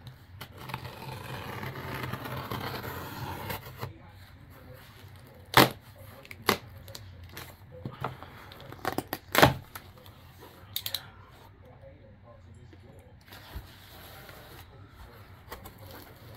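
Utility knife slicing through the packing tape on a cardboard shipping box, a scratchy cutting sound over the first few seconds, followed by several sharp clicks and knocks, loudest about five and a half and nine and a half seconds in.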